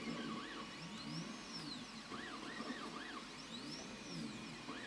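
DIY 3D printer's stepper motors whining as the print head travels back and forth laying down plastic, the pitch rising and falling with each speed-up and slow-down in a string of sweeps.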